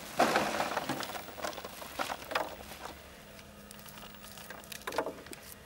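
Rustling and crinkling of pea plants and a sack being handled during hand pea-picking, in irregular crackly bursts that are densest early on and return near the end. A faint steady hum comes in about halfway.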